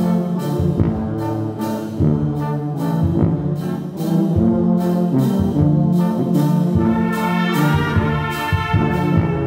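A church brass band with flutes playing a hymn: trumpets, trombones, tubas and a sousaphone in held chords over a bass line that moves from note to note.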